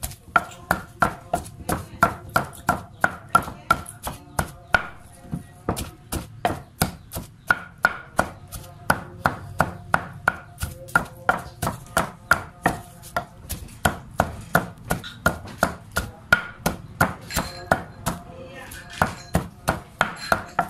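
Pestle pounding a wet chili paste in a stone mortar, about three knocks a second, each with a short ringing tone from the mortar. The pounding stops briefly twice, about five seconds in and near the end.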